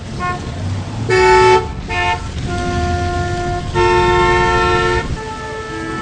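Street traffic with car horns honking over the rumble of engines. Several horns of different pitch sound in turn, from short beeps to long blasts of over a second, with the loudest about a second in and again about four seconds in.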